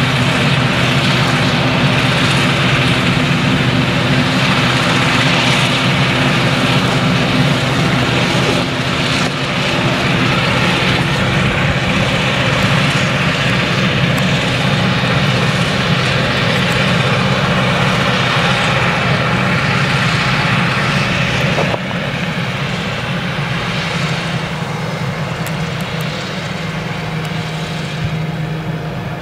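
Claas Jaguar 970 forage harvester's MAN V8 engine running steadily under load while chopping maize, its drone overlaid by the rushing of the chopper and crop blower. It turns slightly quieter a little over two-thirds of the way through.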